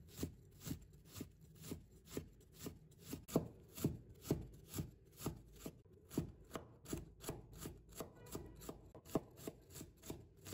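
Chinese cleaver mincing carrot on a wooden cutting board: steady knocks of the blade on the board, about three a second.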